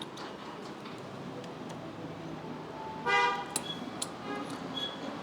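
A short car horn toot about three seconds in, over a steady background hum of noise, followed by a few light clicks.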